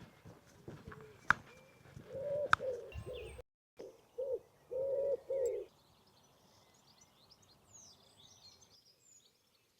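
A pigeon cooing in a repeated low phrase, then small songbirds chirping faintly and high. There are a couple of sharp clicks near the start.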